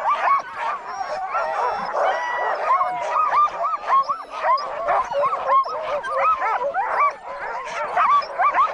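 A team of harnessed sled dogs barking together, a dense run of short overlapping calls without a break.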